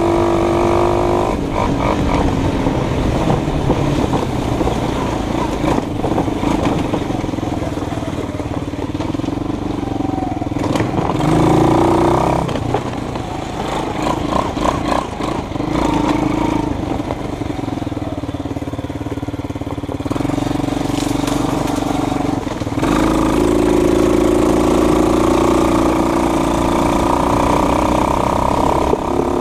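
A vehicle engine running at changing speed: a clear engine note that turns rougher and noisier about a second in, rises briefly near the middle, then comes back strong and steady for the last several seconds.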